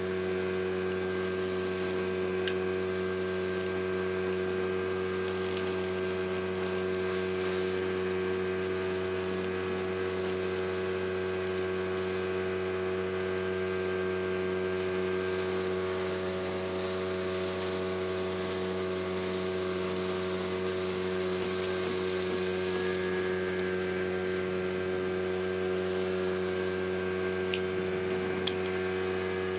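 Speedboat motor running at a steady, unchanging pitch, with an even rushing hiss over it.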